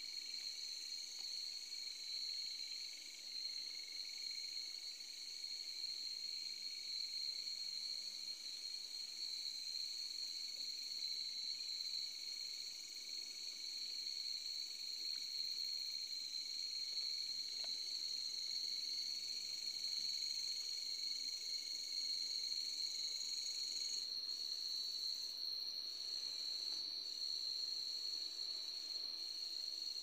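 Crickets trilling steadily in a night insect chorus, a continuous high-pitched ringing. About four-fifths of the way through, a lower part of the chorus stops and a higher one turns to on-and-off pulses.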